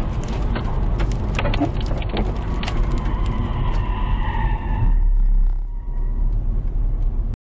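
Road noise heard from inside a car driving on a wet highway in the rain: a steady low rumble of tyres on the wet road, with many sharp ticks in the first few seconds and a faint wavering whine around the middle. The sound cuts off suddenly near the end.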